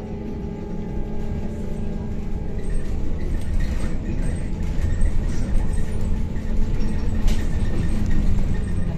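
Cabin noise of a moving MAZ-103T trolleybus: low road and body rumble with a steady electric hum, growing louder as it drives on.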